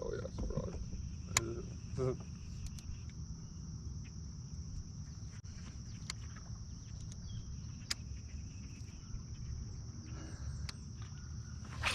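Steady high-pitched insect chorus with a low rumble underneath, broken by a few sharp clicks.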